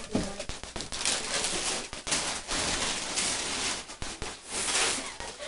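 Gift wrapping paper being torn and crumpled as a present is unwrapped, in repeated crinkling bursts with sharp crackles between them.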